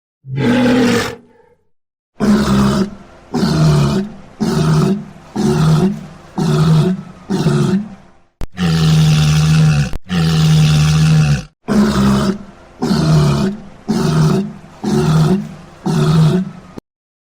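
Walrus calling with low, deep calls. There is one short call, then a series of short calls about two a second, then two long held calls, then another series of short calls.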